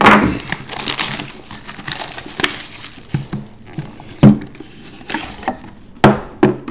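A sealed trading-card hobby box handled on a table: rubbing and rustling of the box, with sharp knocks about four and six seconds in as it is set down and tipped over.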